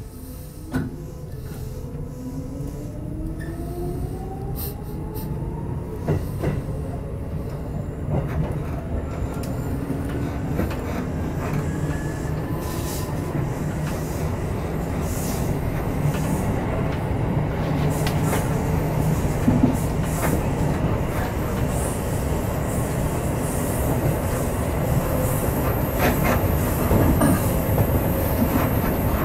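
Electric commuter train accelerating, heard from inside the front car: the traction motor whine rises steadily in pitch over the first dozen or so seconds, while wheel clicks over rail joints and points and the running noise grow louder as speed builds.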